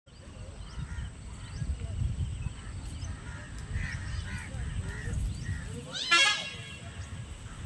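Outdoor ambience: a low rumble with faint chirping calls and distant voices, and one loud harsh animal call about six seconds in.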